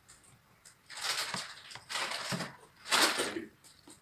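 Three short crackly, rustling noises about a second apart, from fried chicken being handled and eaten.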